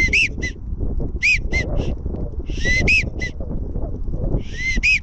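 Wigeon whistles: short three-note whistled calls, the middle note strongest, repeated four times about every second and a half, over a steady rumble of wind.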